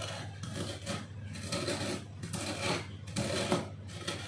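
Wooden rolling pin pressing and rolling over brittle ghee-roasted edible gum (gond) on a marble board, crushing the crisp pieces in repeated strokes, about two a second.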